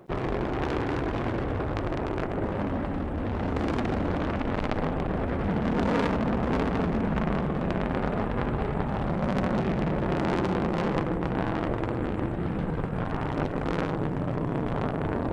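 Space Shuttle Atlantis's rocket motors (solid rocket boosters and main engines) heard from the ground during ascent: a steady, dense rumble with sharp crackling all through it.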